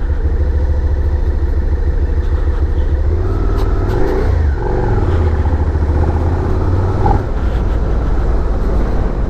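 Suzuki SV650's 645cc V-twin engine running steadily while the motorcycle is ridden, a continuous low rumble with wind buffeting the microphone.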